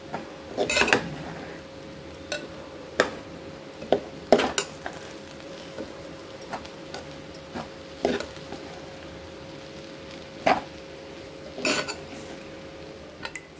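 Spatula stirring rice in a pan, scraping and knocking against the pan at irregular intervals as the chilli powder is mixed into the rice.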